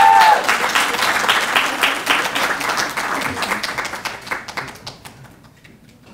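Audience applauding, with one voice's long, high cheer that breaks off just after the start. The clapping thins out and dies away about five seconds in.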